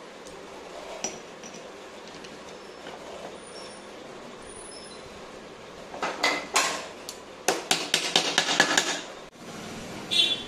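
Metal gearbox parts of a motorcycle engine, shift forks and their pin, clicking and clinking against each other as they are handled and fitted. Over a steady background hiss, a quick run of sharp metallic clicks starts about six seconds in and lasts about three seconds, with one more clink near the end.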